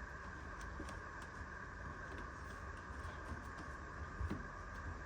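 Faint handling sounds, a few soft taps and rubs, as the washer's rubber door gasket is worked back over the lip of the front panel, over a steady background hum.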